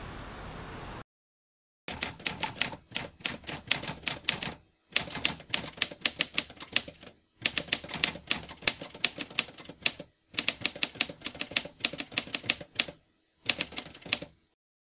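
Typing sound effect: rapid key clicks in five runs of a few seconds each, separated by short pauses.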